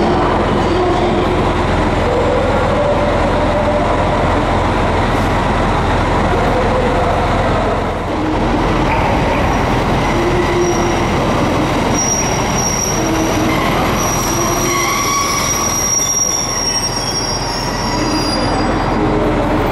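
JR Hokkaido 721 series electric train pulling into the platform, its wheels squealing in several high thin tones during the second half. Before it, steady train noise of a diesel express standing at the platform.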